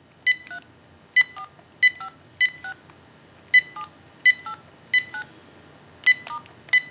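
Touch-tone dialing on a GE 6.0 Design cordless handset, heard through an amplified pickup on its earpiece: about nine keypresses in a row, each a short beep followed by a brief two-tone DTMF tone whose pitch pair changes from digit to digit.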